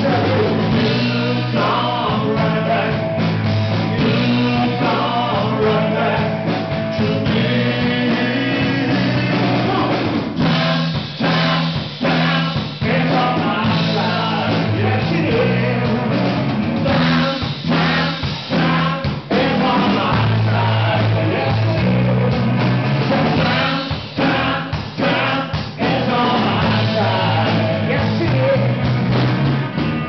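Rock band playing live with a singer, over a repeating bass line.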